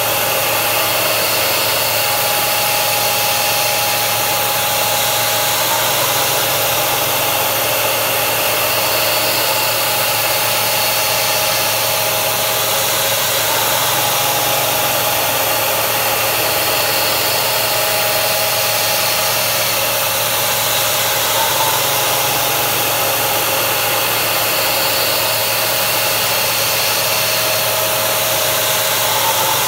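Steady hiss of a mist coolant sprayer over a milling machine's spindle running as a three-flute carbide end mill cuts a part, with a few steady machine tones under the hiss.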